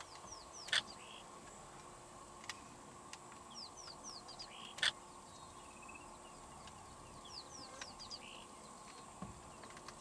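African bush ambience: a bird gives short, falling chirps in quick groups of three or four, three times, over a steady high insect buzz. Two sharp clicks, about one and five seconds in, are the loudest sounds.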